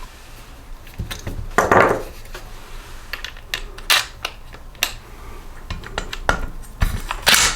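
Metal tools clicking and clinking against an engine as a small bolt is worked loose, with a short scrape about two seconds in and a power tool starting up near the end.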